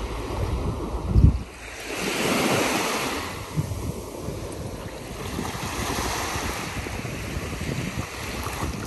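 Wind buffeting the microphone outdoors: a steady rushing noise with irregular low rumbling gusts that swells for a second or so a couple of seconds in.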